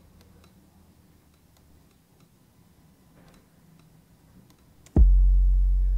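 Faint scattered clicks for about five seconds, then near the end an electronic kick drum hits hard with a long, low 808 bass tone ringing on beneath it. This is the kick before EQ: a big kick, but much of its bass is being cancelled out.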